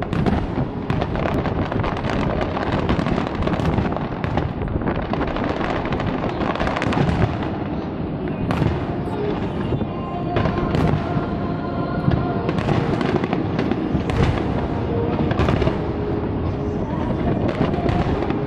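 Large aerial fireworks display, shells bursting and crackling one after another without a pause. Music is faintly heard underneath, clearest about halfway through.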